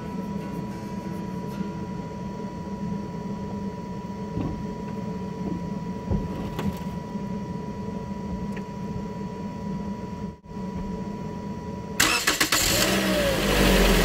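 Toyota Corolla engine idling steadily on its newly fitted battery, with a steady high tone alongside. About two seconds before the end, a loud burst of noise drowns it out.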